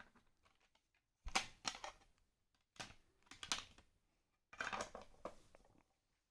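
Small screwdriver accessories being pushed into the fitted slots of a storage case: three short clusters of light clicks and taps.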